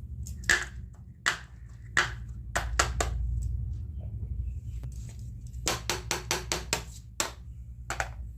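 Small plastic toy kitchen pieces being handled, clicking and tapping against each other: scattered sharp clicks, then a quick run of about seven clicks around six seconds in, over a low steady hum.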